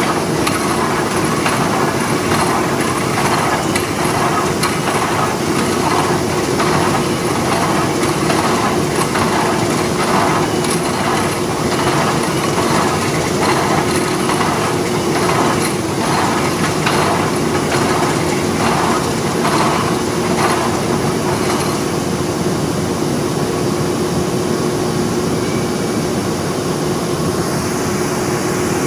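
Orbital coil wrapping machine running, its ring turning through a steel strand coil to wrap it in film, over a steady loud factory machinery din. A regular pulsing, about one and a half beats a second, runs with the wrapping and stops about two thirds of the way through.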